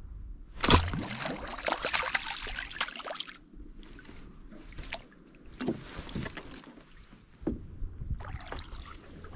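Water splashing in the shallows beside a small boat: one loud splashing burst lasting about two and a half seconds, then a few shorter, quieter splashes and knocks.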